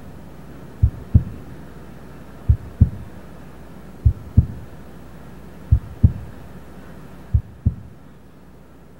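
A slow heartbeat: five double thumps (lub-dub), low and dull, about one and a half seconds apart, stopping near the end.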